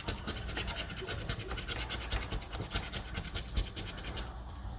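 Scratch-off lottery ticket being scraped: quick, repeated scraping strokes across the card's coating, easing off near the end.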